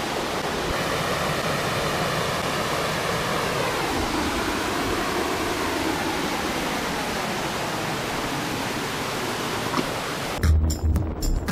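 Shallow river water rushing over rocks in a small cascade, a steady rush of water. Music with a beat cuts in about a second before the end.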